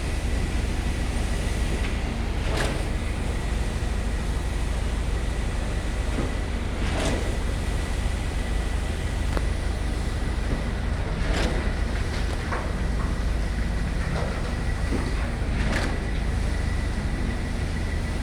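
Diesel engines of a truck-mounted concrete pump and ready-mix concrete mixer truck running steadily during a pour, with a sharp knock about every four and a half seconds as the pump changes stroke.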